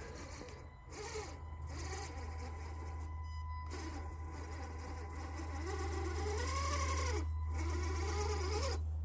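Electric motor and geartrain whine of a scale RC rock crawler on Redcat Gen7 running gear, rising and falling in pitch with the throttle as it climbs. The whine swells and gets louder in the second half.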